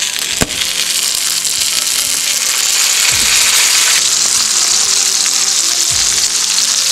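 Steelhead trout fillets frying in melted butter in a pan, a steady sizzle, with one small knock about half a second in.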